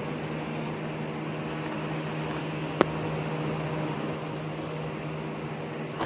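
A steady low machine hum with a few fixed pitch lines, and a single sharp click a little under three seconds in.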